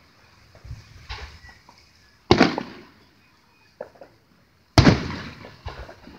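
Aerial firework shells bursting: two loud booms about two and a half seconds apart, each trailing off in an echo, with smaller pops in between.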